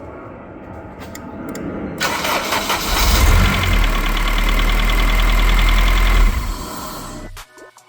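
A motor starting up, running steadily for about three seconds with a low hum and a faint regular ticking, then winding down and stopping.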